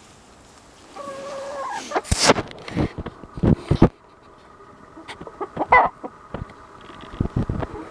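Hens and a rooster clucking, with one drawn-out call about a second in, several sharp noises between two and four seconds in, and short calls again later.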